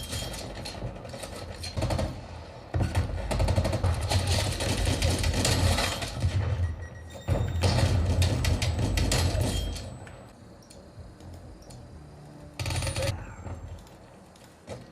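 First-person shooter game sound effects: bursts of rapid gunshots and heavy impacts, loud through most of the stretch. It then goes quieter in the last few seconds, with one more short burst before the end.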